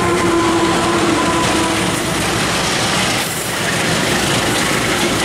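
Passenger train passing close by: a loud, steady rush of steel wheels on rail, with a steady hum that fades out over the first second or two.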